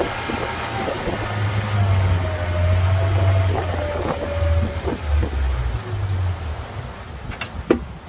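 Boat motor running, a low hum with a wavering whine over it, easing off about six and a half seconds in; two sharp knocks near the end.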